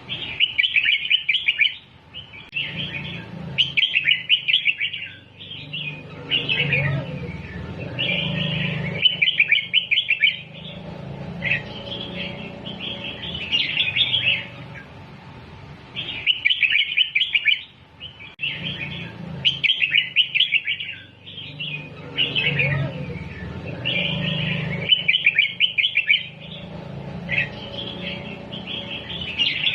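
Red-whiskered bulbul song: phrases of quick, bubbly chirping notes a second or two long, separated by short pauses. The same sequence of phrases repeats about every 16 seconds, as a looped tutor recording for training young bulbuls. A low hum runs underneath.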